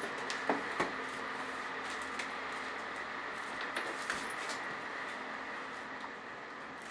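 Light handling noises of the iPad's retail box being unwrapped and opened: a few soft taps and knocks, at about half a second and one second in and again around four seconds, over a steady faint hiss.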